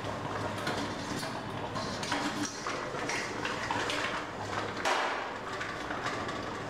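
Stainless steel lid scraped and lifted off a pot of dum-cooked biryani, with a few sharp metal clinks, over a steady hiss.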